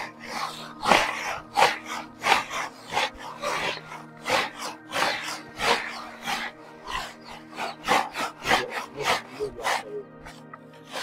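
Dry tiger nuts rattling and rustling as hands rake them back and forth over a wooden slatted sieve, in quick uneven strokes about two a second, over background music.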